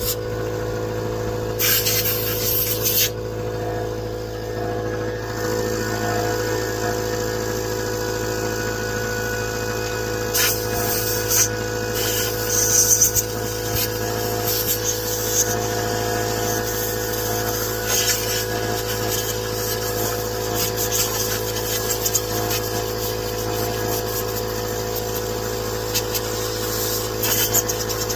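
A steady mechanical hum, with scattered clicks and knocks of hand-tool work.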